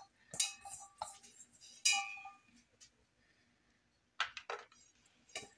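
Stainless steel mixing bowl clinking, about three knocks in the first two and a half seconds, each ringing briefly. A few softer clicks follow about four seconds in.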